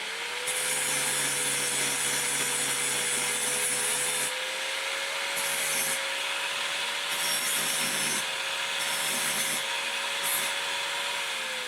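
Angle grinder running against the steel, grinding down the weld on square tube, with a steady motor whine under the grinding hiss; the grinding comes and goes, and the whine drops in pitch near the end as the grinder winds down.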